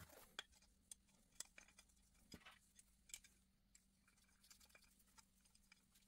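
Near silence: faint, scattered light clicks and taps from a small metal DC motor and an aluminium mounting bracket being handled, about ten in all, over a faint steady hum.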